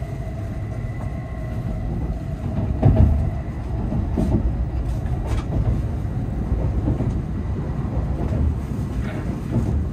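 Running noise of an N700S Shinkansen heard inside the passenger cabin: a steady low rumble with a faint whine that fades out about three seconds in. A few knocks from the wheels on the track come through, the loudest about three seconds in.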